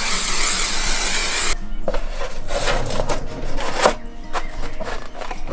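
Aerosol spray adhesive hissing steadily onto a foam insulation board, cutting off about a second and a half in. Then come scattered knocks and rubbing as the board is handled and pressed down into place.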